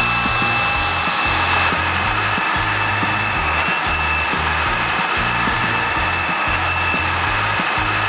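Xiaomi Wireless Vacuum Cleaner 2 cordless stick vacuum running at its highest suction setting as its floor brush is pushed over carpet, picking up flour: a steady rush of air with a high motor whine. Background music with a stepping bass line plays underneath.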